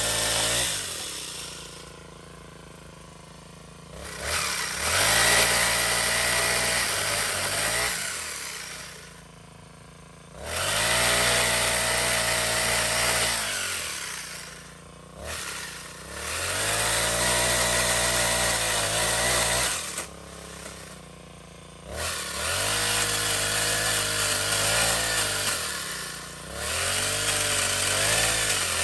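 GX35-type four-stroke brush cutter engine driving a pole chainsaw attachment. It is throttled up to high revs in about five bursts of a few seconds each, dropping back to idle between them, while the chain cuts into a tree branch.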